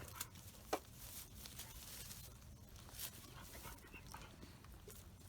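Faint dog panting and snuffling with scattered rustling, and a sharp click a little under a second in.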